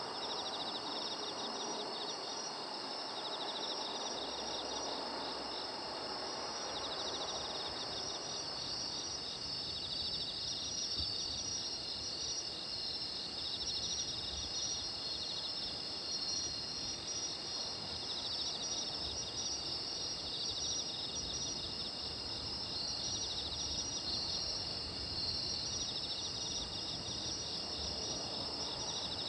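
Chorus of autumn insects singing at night: a steady high trill with rapid pulsed chirp trains repeating throughout.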